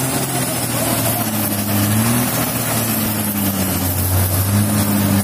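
Heavy diesel engine of a crane recovery truck running under load, its pitch slowly rising and falling as it is revved up and eased off.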